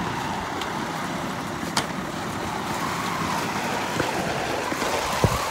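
A fire engine's motor running steadily, with a faint whine that slowly wavers up and down. A few sharp clicks and knocks come through, about two seconds in, four seconds in and near the end.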